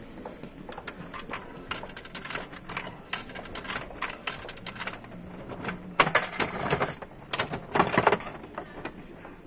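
Coins clinking one after another into a gachapon capsule-toy machine's coin slot, then from about six seconds in the machine's dial handle being turned with bursts of loud mechanical clicking.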